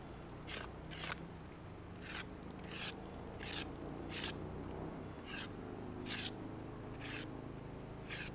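Knife blade shaving curls off a green wooden stick: about ten short scraping strokes, one roughly every three-quarters of a second, as the stick is dressed smooth.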